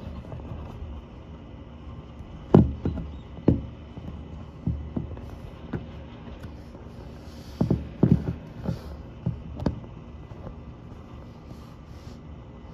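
Dull low thumps at irregular intervals over a steady low hum. The loudest comes about two and a half seconds in, and several more come in a cluster around eight seconds in.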